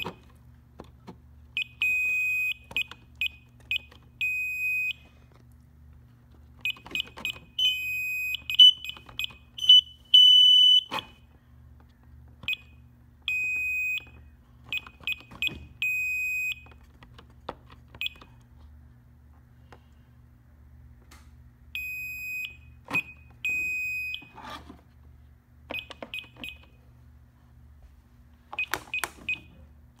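Brinks home security keypad beeping as its keys are pressed: runs of short, high key-press chirps with several longer held beeps of the same pitch, and one higher tone about ten seconds in. A steady low hum lies underneath.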